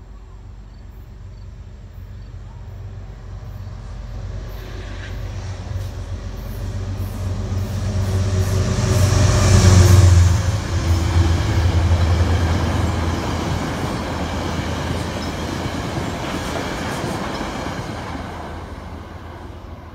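Metro-North express train passing through the station without stopping: an MTA P32AC-DM diesel locomotive and seven Shoreliner coaches. The diesel rumble builds to its loudest about ten seconds in as the locomotive goes by, then the coaches rumble past and fade away near the end.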